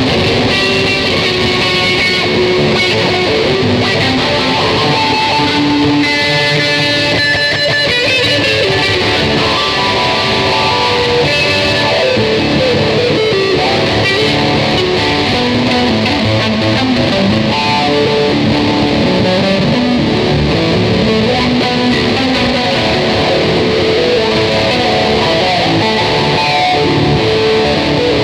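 Ibanez electric guitar played continuously in a loose, improvised jam, with a steady flow of strummed chords and picked notes.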